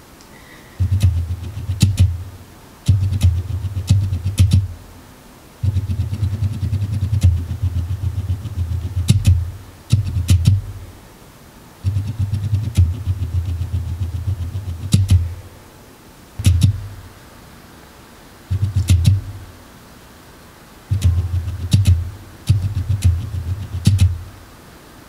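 Real Techniques Miracle Complexion Sponge dabbing liquid foundation onto the face, heard as dull low thudding in repeated bouts of a second or two with short pauses, and sharp clicks scattered through.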